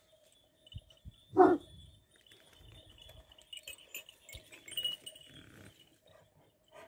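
A single short vocal sound from a Kangal shepherd dog, a brief yelp about a second and a half in. The rest is faint, with a few soft clicks.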